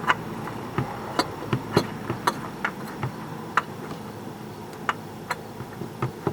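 Light, irregular clicks and taps of a new spin-on oil filter being handled and threaded on by hand, over a steady low background hum.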